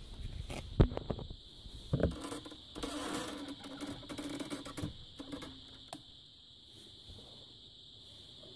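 Handling noise: a sharp knock about a second in and another at about two seconds, then a couple of seconds of rustling and scraping with a few small clicks, as a circuit board is moved about by hand. A steady high-pitched whine runs underneath.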